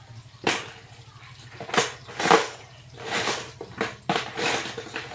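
A run of about six short, sharp knocks and scraping bursts over a faint steady low hum.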